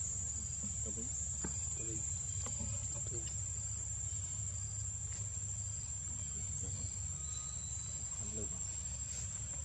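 Steady, high-pitched drone of insects calling without a break, over a low steady rumble.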